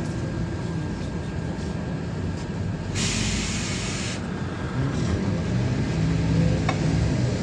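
Inside a LiAZ-5292.21 city bus under way: the steady drone of its diesel engine and road rumble. About three seconds in comes a hiss of compressed air from the bus's pneumatic system, lasting about a second. The engine note grows louder after the middle, as the bus pulls harder.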